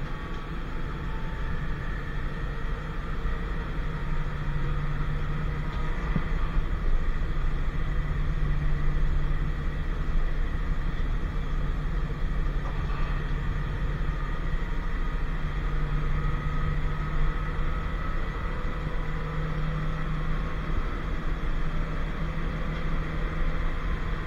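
Historic Basel tram running: a steady low rumble with a motor hum whose pitch shifts slightly up and down.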